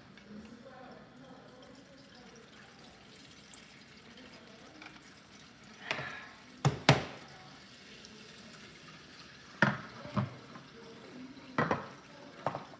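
Kitchen tap running faintly into a pot in a steel sink. About six seconds in, a series of sharp knocks begins, the loudest a quick pair about seven seconds in, with more near ten and twelve seconds.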